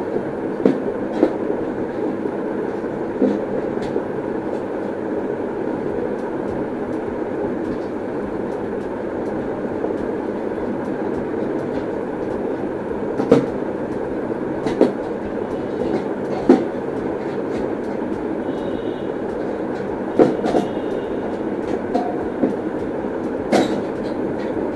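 Scattered light metallic clicks and clinks as the thin titanium panels of a folding wood-burning camping stove are handled and fitted together at their hinges, about ten in all, over a steady background rumble.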